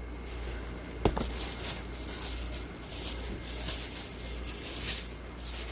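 Plastic-wrapped fireworks packaging crinkling and rustling as it is handled, with a sharp click about a second in.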